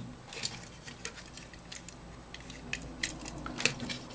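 Light, irregular clicks and taps of hard plastic model-kit (Gunpla) parts being handled and fitted together.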